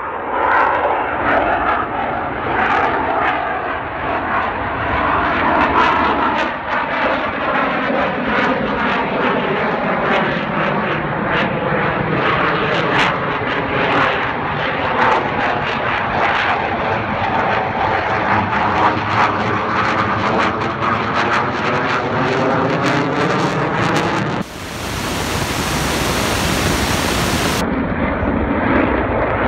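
F/A-18 fighter jet's engines running loud as the jet flies past, the rushing noise sweeping in tone while it passes. About 25 seconds in, a harsh hiss cuts in for some three seconds.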